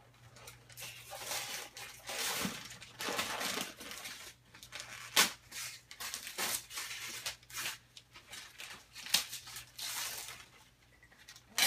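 Gift wrapping paper being torn and crumpled in irregular rustling bursts as presents are unwrapped, with a couple of sharp knocks, one about five seconds in and one near the end.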